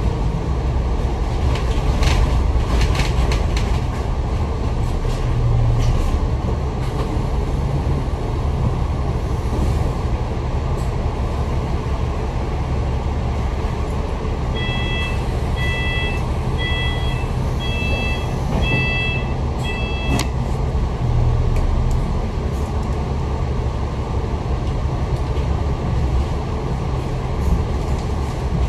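Interior sound of a Citybus bus on the move: a steady engine and road rumble mixed with loud air-conditioning noise. About halfway through, a run of about six short electronic beeps sounds, about one a second.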